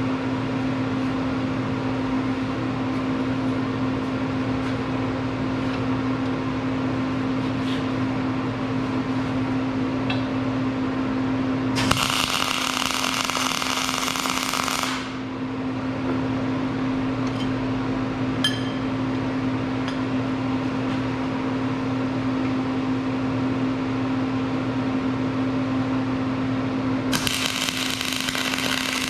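Arc welding tack welds, each a few seconds of crackling arc: one about twelve seconds in, lasting about three seconds, and another starting near the end. A steady hum runs underneath.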